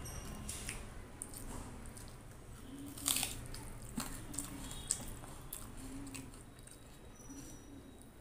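Close-up eating sounds: fingers mixing rice with kadhi on a steel plate, soft wet squishes with several sharp clicks against the plate, the loudest about three seconds in.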